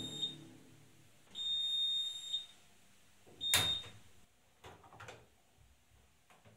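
High electronic beeps, each about a second long, sounding about every two seconds. The last is cut short by a sharp click, followed by a few faint soft knocks.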